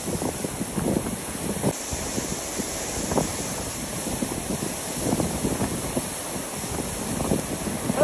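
A large waterfall pouring onto rocks close by, a steady rushing noise, with gusts of wind and spray buffeting the phone's microphone.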